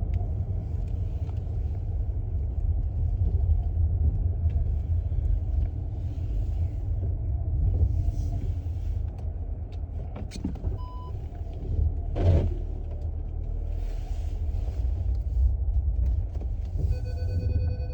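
Car's low engine and road rumble heard from inside while driving. A short electronic beep sounds about eleven seconds in, a single knock follows about a second later, and a pulsing tone sounds near the end.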